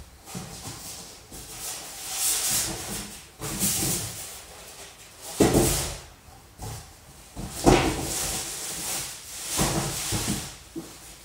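Rummaging inside a large cardboard box: cardboard and packaging rustling and scraping in swells, with two louder knocks about halfway through and again two seconds later.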